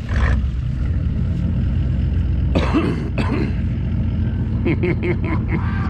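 Pickup truck engine running steadily at low revs, with short bursts of voices over it about two and a half seconds in and again near the end.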